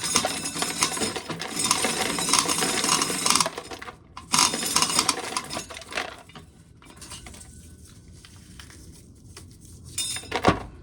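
Dry corn kernels being shelled off the cob by hand, rattling and clinking into a pail in dense runs that thin out after about six seconds. A single knock comes near the end.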